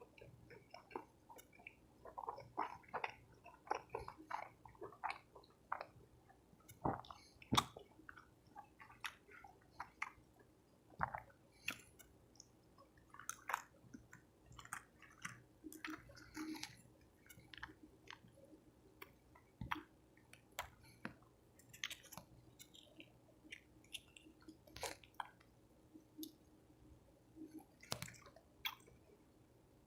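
A person chewing soft tacos: irregular close-up mouth clicks and smacks, coming in quick runs and then pausing.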